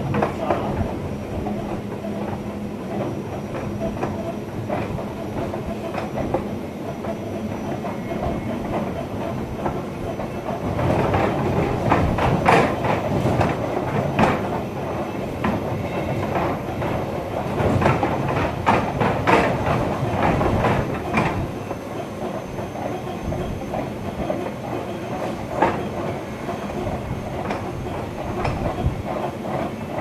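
Train running along the line, heard from the driver's cab: continuous rumble with wheels clattering over rail joints, busier and louder for a stretch through the middle, and a steady low hum at the start.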